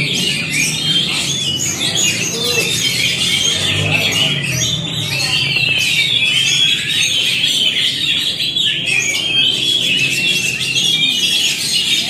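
Several Oriental magpie-robins (kacer) singing at once in their cages, a dense, unbroken tangle of quick, high, overlapping song phrases.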